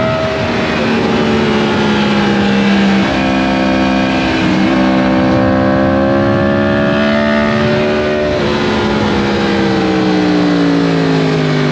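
Yamaha MT-10's crossplane inline-four engine running under way, heard with rushing wind noise; its note shifts several times through changes of speed and gear, then winds steadily down near the end as the bike slows.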